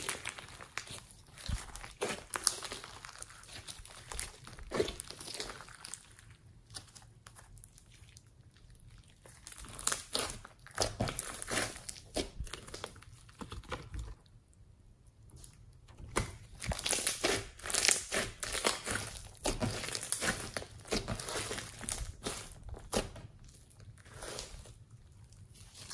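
Hands squeezing, folding and stretching thick yellow slime with small beads mixed in, making irregular runs of crackles and squishes, with a quieter spell a little past halfway.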